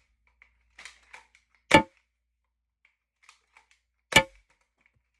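Lever-action foam dart blaster with a six-shot cylinder firing twice, each shot a sharp snap, about two and a half seconds apart. Each shot is preceded by a few light clicks from the lever being cycled.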